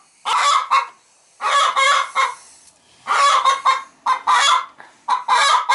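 Hen sitting on her nest squawking in a string of about five short calls with pauses between them: a hen protesting at a hand reaching under her for the egg.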